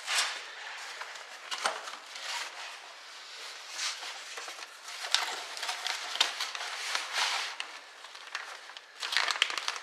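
Plastic and paper wrapping crinkling and rustling as wrapped struts are handled and lifted out of a car trunk, in irregular bursts with a denser burst of crinkling near the end.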